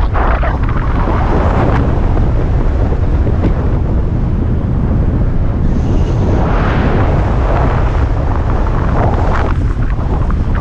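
Rushing air buffeting the camera's microphone in fast speed-wing flight: a loud, steady low rumble that surges unevenly, swelling about six seconds in.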